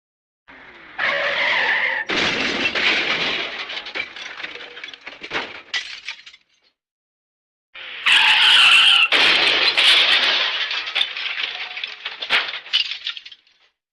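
Cartoon-style smash sound effect played twice: each time about a second of blaring pitched sound, then a loud crash of breaking glass and debris that tails off in scattered clinks.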